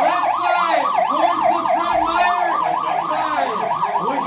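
Building fire alarm sounding: an electronic siren tone sweeping quickly up and down, about four sweeps a second, set off by someone pulling the alarm.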